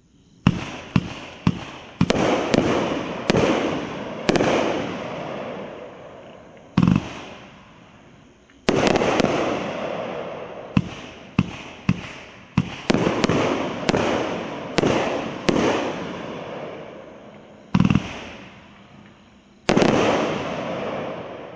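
A 25-shot fireworks cake firing its aerial shots: sharp bangs come in quick clusters, each volley trailing off in a long, fading crackle, with brief lulls between volleys.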